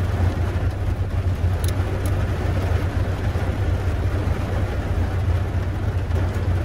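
A Tofaş car's engine running steadily, a low drone heard from inside the cabin, over an even hiss. Two faint clicks about two seconds in.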